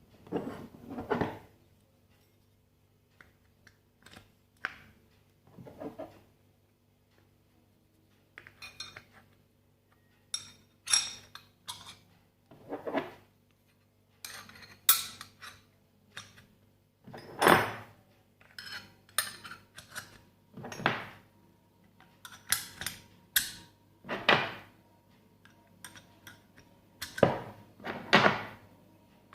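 Chrome vanadium steel combination spanners clinking and knocking against each other and the case as they are handled, in irregular, sharp metallic clinks with a short ring.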